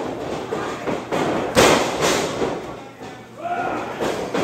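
A few heavy thumps on the wrestling ring, the loudest about one and a half seconds in. Crowd voices follow near the end.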